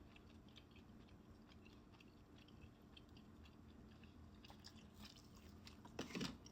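Faint close-up chewing of fried chicken, with small wet mouth clicks scattered throughout, and a brief louder mouth sound about six seconds in.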